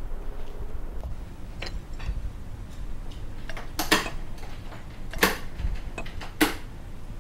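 Ceramic rice bowls and plates set down on a table one after another: a few sharp clinks spaced about a second apart, the loudest in the second half.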